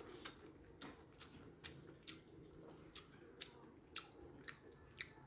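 Faint wet mouth clicks and lip smacks from licking food off the fingers and chewing the last bits: about eight short sharp clicks, roughly every half second.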